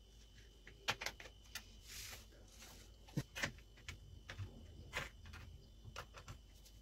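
Kitchen knife and metal slotted spatula clicking, tapping and scraping against an aluminium tray as a set sweet is cut and pried loose, in irregular sharp clicks with a short scrape about two seconds in.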